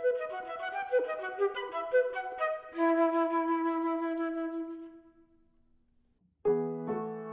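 Solo flute playing a melodic phrase that ends on a long held note, fading away about five seconds in. After a short silence a piano comes in with a chord near the end.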